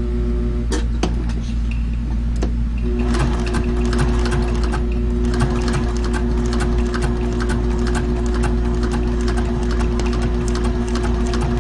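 Servo-driven walking-foot (triple-feed) lockstitch industrial sewing machine stitching through thick layered leather, a rapid, even run of needle strokes over a steady motor hum. It stops about a second in, gives a few single stitches, then runs on again from about three seconds in.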